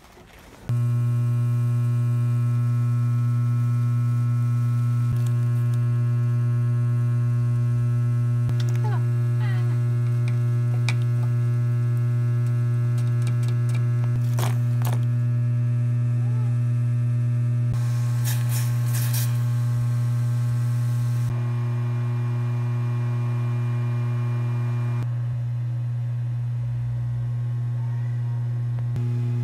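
Steady, loud low electrical hum with a stack of overtones, kicking in just under a second in. A few sharp clicks and clinks sound over it midway.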